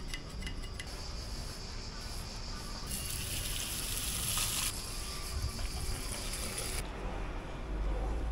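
A garden hose sprays water over motorcycle parts on a tiled floor, a hissing spray that starts about three seconds in, is strongest for under two seconds, and goes on more weakly until near the end. A few light clicks of metal parts being handled come at the very start.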